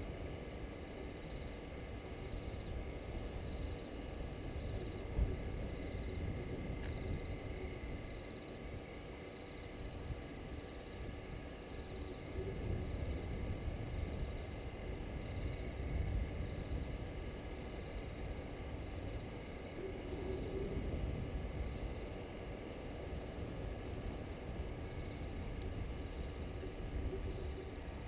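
Night insect chorus: crickets trilling continuously in a fast, high, pulsing chirr, with another short call repeating about every two seconds and little bursts of chirps every few seconds. A low steady rumble runs underneath.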